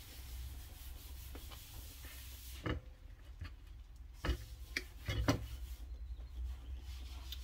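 Soft, scattered clicks and rubs of someone eating with a fork, over a low steady hum. The clicks bunch together about halfway through.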